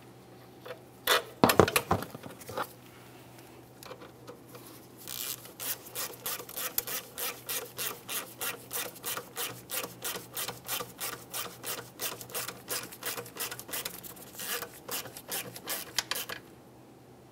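Hand ratchet on a 10 mm bolt, clicking in quick, even back-and-forth strokes at about three a second as the bolt is run down. The ratcheting starts about five seconds in and stops shortly before the end, after a few brief knocks of the tool near the start.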